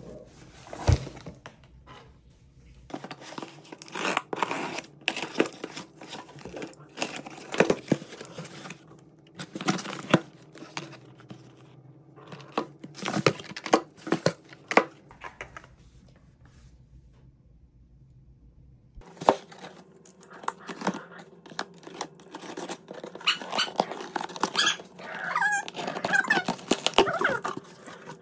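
A cardboard shipping box being unpacked by hand: packaging is rustled, torn and crinkled and product boxes are set down, in separate clusters with a quieter stretch past the middle. A dog barks and whines at times, with wavering whining cries near the end.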